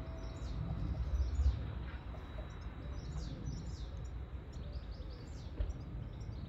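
Small birds chirping over and over with short, high chirps, above a low steady rumble.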